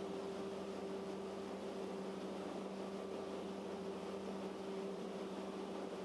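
Steady drone of a paddle-wheel ferry's machinery under way: a constant low hum over an even rushing noise.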